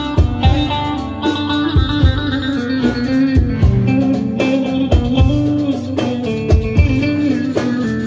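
Live band playing an instrumental passage of a Turkish folk-dance tune: a plucked-string melody over low drum thumps, with no voice.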